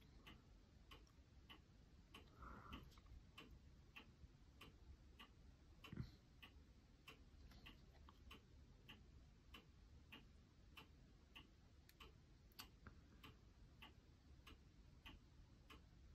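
Near silence with faint, even ticking about twice a second, and a single soft knock about six seconds in.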